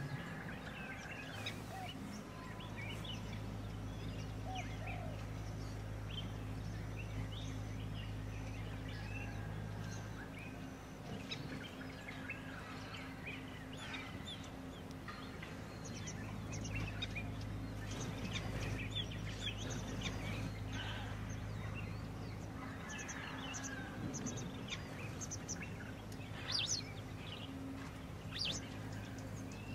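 Birds chirping and calling, many short high calls scattered through, with a louder sharp call near the end, over a steady low hum.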